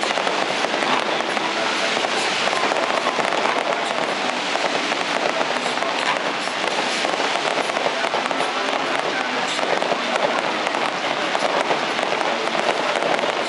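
Fireworks display: a dense, continuous crackle of many small pops and bangs at a steady loudness.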